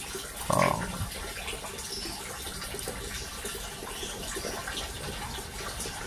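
Steady rushing noise like running water, with one short voice-like sound about half a second in.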